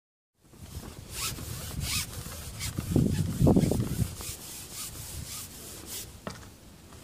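Irregular rubbing and scraping from handling, a run of short scrapes about every half second, with a louder low rumble about three to four seconds in.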